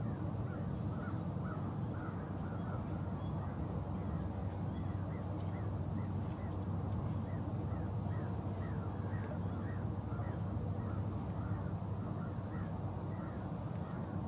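Birds calling in a fast run of short, falling calls, two or three a second, over a steady low hum.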